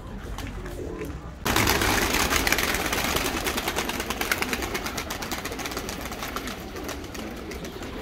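Domestic pigeons cooing softly, then about a second and a half in a flock takes off at once in a loud burst of rapid wingbeats, the flapping slowly fading.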